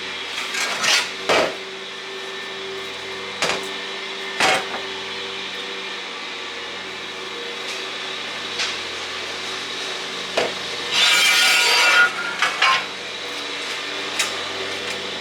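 Steel pieces of a yard cart's hitch knocking and clinking together as they are test-fitted, with a few separate knocks and a scraping slide of metal on metal about eleven seconds in. A steady low hum runs underneath.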